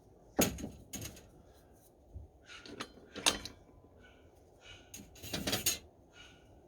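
A handful of irregular scraping strokes on the steel head of a block-splitting maul as it is sharpened by hand. The strongest come about half a second in, around three seconds in, and in a longer stroke near the end.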